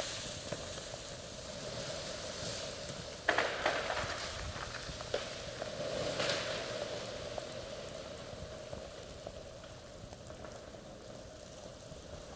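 Steady crackling patter of freezing rain on ice-coated trees, with a sudden burst of cracking about three seconds in and another, smaller one around six seconds: ice-laden limbs snapping.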